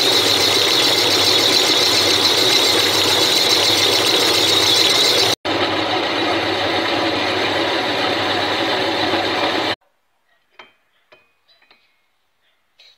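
Homemade metal lathe running and cutting a spinning metal workpiece: a loud, steady machining noise with a high-pitched edge. It drops out for an instant about five seconds in and stops abruptly near ten seconds, followed by a few faint metallic clinks as a finned engine cylinder is handled.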